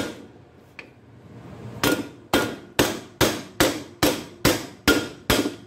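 A hammer taps on a nut threaded flush onto a press-fit strut-to-spindle bolt, driving the threaded bolt out of the strut bracket; the nut keeps the bolt's threads from being damaged. One sharp metal strike comes at the start, then after a pause a steady run of about nine taps, roughly two and a half a second.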